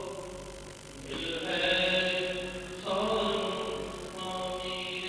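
A man's voice chanting a line of Sikh scripture (gurbani) in long, held notes, the pitch shifting three times.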